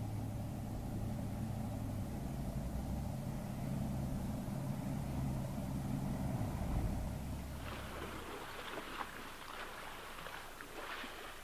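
An engine running steadily with a low hum, then fading away after about seven seconds as it moves off.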